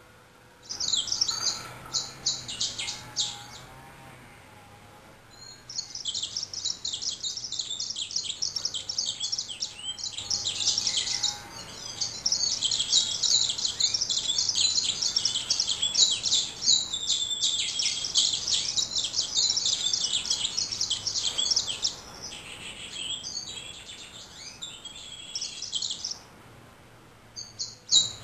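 Male yellow-rumped seedeater singing: a short burst of high, rapid notes, then after a pause a long unbroken song of fast twittering phrases lasting well over fifteen seconds. It grows softer and breaks off near the end, then starts again.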